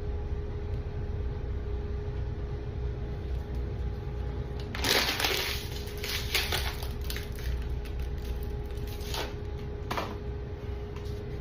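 Crackling, crinkling noise: a loud burst about five seconds in, then scattered shorter crackles and two single clicks, over a steady low rumble and faint hum.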